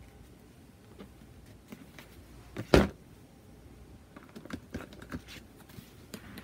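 Painting tools being handled on a hard work table: one loud knock a little under three seconds in, and a run of small clicks and taps in the second half.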